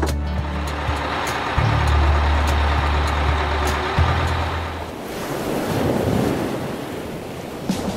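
Bus engine running with a steady low hum, with a click about four seconds in. At about five seconds the engine gives way to the rush of ocean waves.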